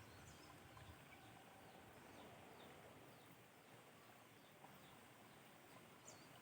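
Near silence: faint outdoor ambience with scattered faint, high-pitched bird chirps.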